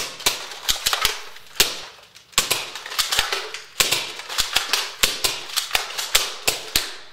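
Two Nerf Maverick REV-6 spring-plunger revolvers being primed and fired in quick succession: an irregular run of sharp snaps and clacks from the slides and the plunger shots.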